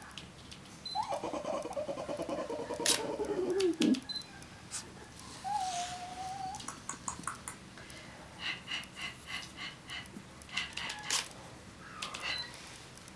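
Chihuahua puppies at play: a puppy's pulsing growl-like whine about a second in that slides down in pitch at its end, then a short high whimper, with scattered sharp clicks and a quick run of ticking later on.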